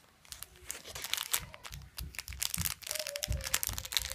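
Clear plastic wrapper of a packaged dorayaki crinkling and crackling as fingers grip and squeeze it, with low thumps from the handling.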